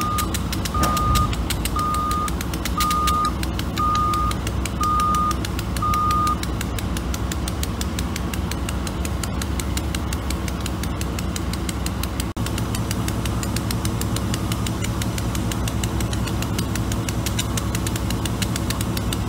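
Wheel loader's reverse backup alarm beeping seven times, about once a second, then stopping about six seconds in, over the steady running of a diesel engine.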